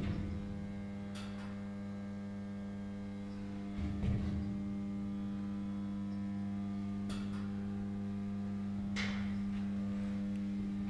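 Steady hum of ship's engine-room machinery, one pitched drone with many overtones, with a few short knocks about four, seven and nine seconds in.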